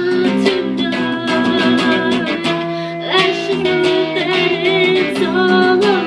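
Live band music: a woman singing a melody over an electric guitar played through an amplifier.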